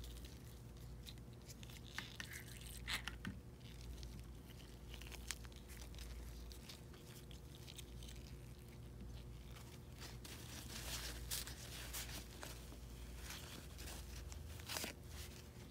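Faint handling of a Canon colour ink cartridge in gloved hands: scattered small plastic clicks as its clip is taken off, then a paper towel crumpling and rubbing as the print head is wiped. The rustling is busiest from about ten seconds in.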